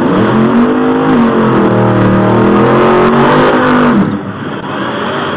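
Drag-race car's engine revving hard during a burnout, its pitch rising and falling for about four seconds, then dropping to a quieter idle-like running as the car rolls toward the line.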